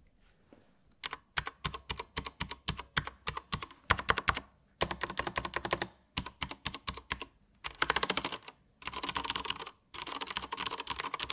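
Simulant Amiga-style mechanical USB keyboard being typed on: its key switches clack in fast runs of keystrokes, starting about a second in and broken by several short pauses.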